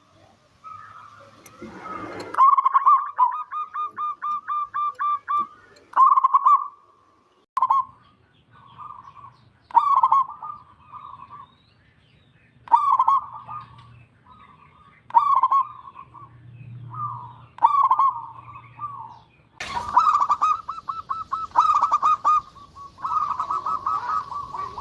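Zebra dove (perkutut) cooing over and over: phrases of short, quickly repeated coos, one run of about a dozen evenly spaced notes, then further phrases every couple of seconds. A sharp click about twenty seconds in, with some hiss after it.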